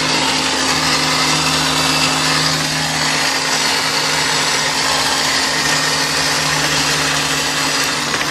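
A steady electric motor whir with a low hum from a 1999 Kia Sportage's engine bay, running on by itself with the ignition off and no key in. The owner thinks it is the starter motor, but is not sure.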